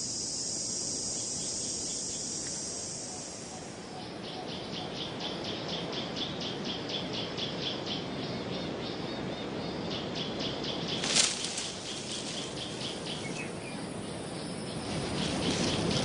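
Forest wildlife ambience. A steady high-pitched insect buzz fills the first four seconds, then gives way to an evenly repeated chirping call. There is one sharp click about eleven seconds in, and a rising rush of noise near the end.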